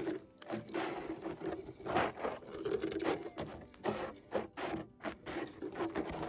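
Dirt and gravel from a dug pile being scraped and shifted in quick, irregular strokes.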